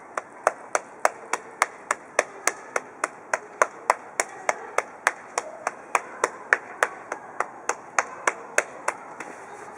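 Rhythmic slapping massage: open hands striking the leg in quick, even strokes, about three to four slaps a second.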